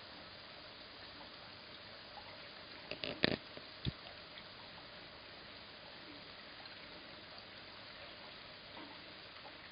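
Steady soft hiss of heavy wet snow falling. About three seconds in there is a short cluster of sharp clicks and knocks, and one more knock comes just before four seconds.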